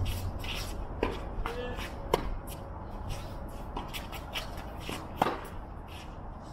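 Players' feet shuffling on a tennis court with a short shoe squeak, and three sharp tennis-ball impacts about one, two and five seconds in.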